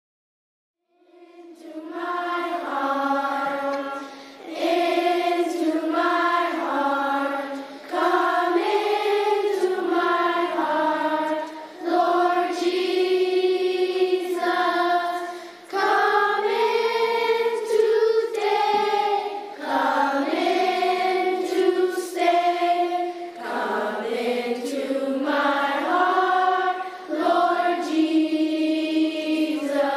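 A choir singing a slow hymn in long held notes. It starts about a second in, with short breaks between phrases.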